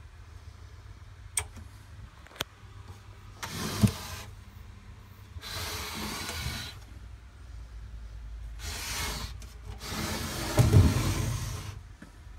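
Two sharp clicks about a second apart, then four bursts of rubbing, rustling handling noise with low thumps from a phone being moved around while filming, the loudest burst near the end.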